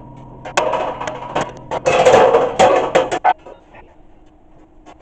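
Metal clattering and rattling: a burst of noisy scraping with sharp clanks starting about half a second in and stopping abruptly after about three seconds, over a low steady hum that cuts off at the same moment.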